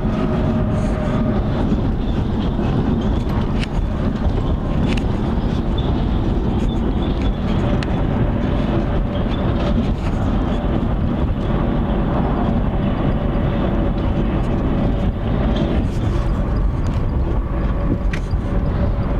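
Steady road noise inside a moving car at speed: a low engine and tyre rumble with a faint hum, and a few small clicks and rattles.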